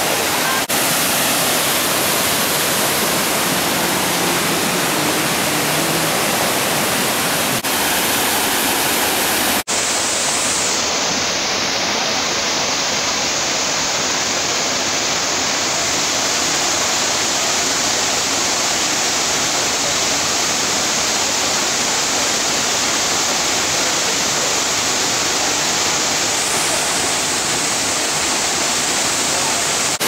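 Tiered waterfall running steadily into a pool: an even, loud rush of falling water, broken only by a brief dropout about ten seconds in.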